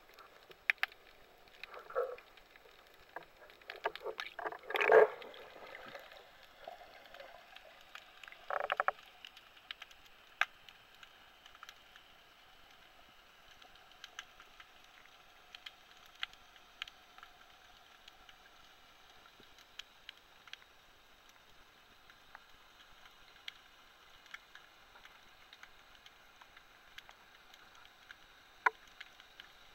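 Underwater ambience picked up through the housing of a camera mounted on a speargun: scattered faint clicks and crackles, with a few louder noisy bursts about two, five and nine seconds in.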